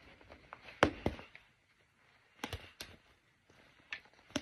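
Metal snap fasteners on a heavy flannel western shirt being popped open: about six sharp pops, roughly in pairs, with faint fabric handling between them.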